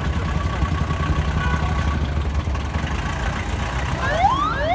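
Vintage cars' engines running at low speed as they roll slowly past over cobblestones, a steady low rumble. Near the end, a repeated rising whooping tone begins, about two a second.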